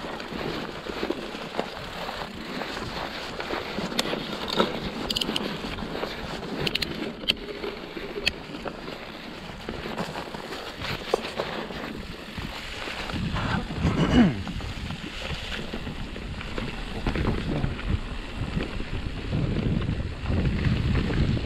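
Mountain bike rolling fast down a rough trail: tyre noise with scattered sharp rattles and knocks over bumps. Wind buffets the helmet- or bike-mounted camera microphone and grows louder and rumbling about halfway through.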